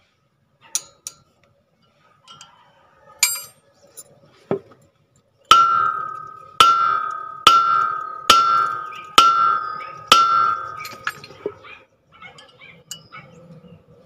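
Hammer blows on a Ford Ranger's steel brake rotor disc to knock it loose from the hub: a few light metal clinks, then six hard strikes about a second apart starting about halfway through, each leaving the disc ringing like a bell.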